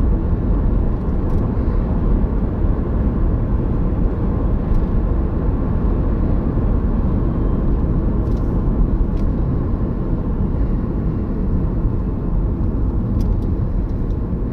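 Steady road and engine noise inside a car's cabin while driving at about 40 mph, a low rumble with a few faint ticks.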